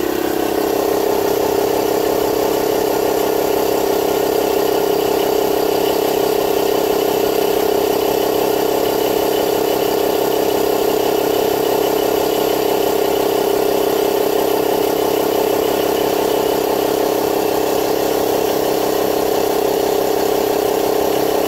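Avid Power ACAP322 portable tyre inflator's compressor running with a steady, unchanging hum while it pumps up a car tyre, the pressure creeping up slowly.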